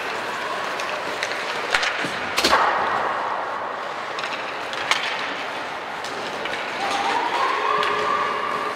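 Ice hockey play in an arena: skates scraping the ice under a steady hum, with a few sharp cracks of sticks and puck, the loudest about two and a half seconds in. Near the end a long shout rises slightly in pitch.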